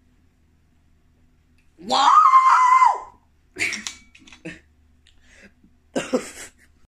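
A man's loud, held yell lasting about a second, then a few short breathy bursts of voice and a sharp cough near the end.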